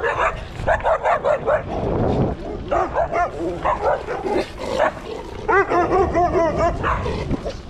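Dogs barking and yipping in quick strings as they chase a passing bicycle, with the loudest run of barks about five and a half seconds in.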